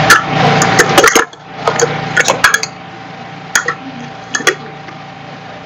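Ceramic dishes clinking and knocking together as they are handled and set down: a quick cluster of clinks in the first couple of seconds, then two more single clinks near the middle.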